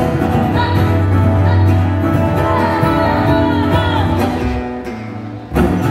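A country song played live through a PA on two strummed acoustic guitars, with a woman singing. The music drops back briefly near the end, then comes in again at full strength.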